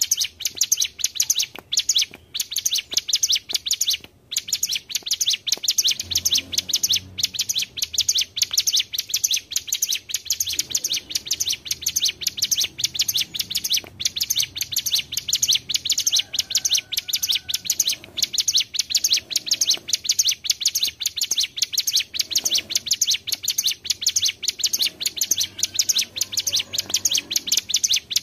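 Ciblek gunung, a prinia, singing a continuous fast, high-pitched trill of rapidly repeated notes, broken by only a few short gaps in the first few seconds.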